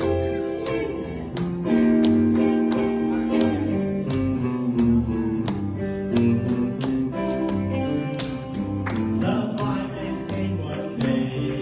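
Gospel song: a man singing to guitar accompaniment, held notes over a steady beat.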